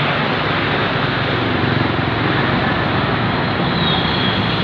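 Tour bus's diesel engine pulling uphill as it passes, a steady rush of engine and tyre noise.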